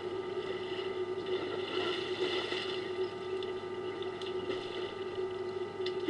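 Elephants wading and splashing in a waterhole, a soft watery sloshing under a steady low hum and hiss, with a few faint ticks near the end.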